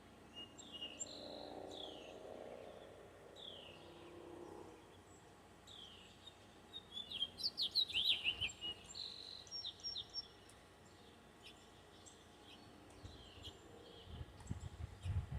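Birds chirping, with repeated short downward-sweeping chirps and a flurry of rapid, louder calls about halfway through. A faint low hum sits underneath for the first few seconds, and a low rumble comes in near the end.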